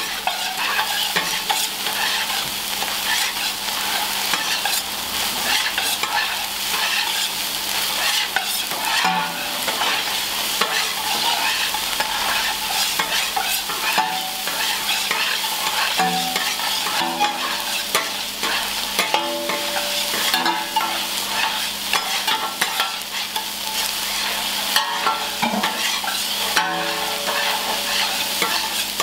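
Fried rice sizzling as it is stir-fried in a wok, with a metal ladle scraping and clanking against the pan; the clanks ring briefly.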